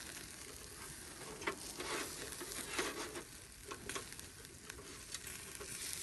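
Skewered sucuk sausage, mushrooms and peppers sizzling over a charcoal grill, a steady hiss with scattered sharp crackles.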